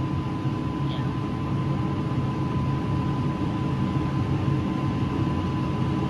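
Tractor engine running steadily, heard from inside the cab, with a thin steady whine above the engine hum.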